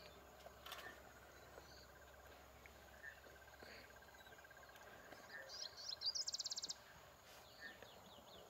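Faint bush ambience of insects and birds: a thin steady insect trill, with a short run of high chirps and then a fast high trill about six seconds in.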